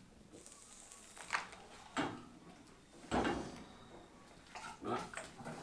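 A few sudden knocks and thumps, the loudest about three seconds in, with a cluster of smaller ones near the end.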